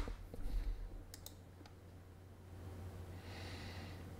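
A few faint computer mouse clicks, with a soft breath about three seconds in, over a low steady hum.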